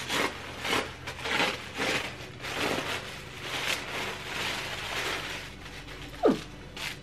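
Tissue paper rustling and crinkling in irregular bursts as it is pulled open and folded back in a box. About six seconds in there is one short falling tone.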